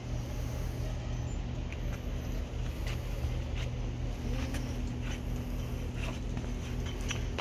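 Steady low engine hum, with scattered light clicks and a sharp knock near the end.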